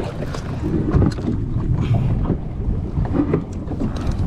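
Wind rumbling on the microphone over open water, with scattered small clicks and knocks.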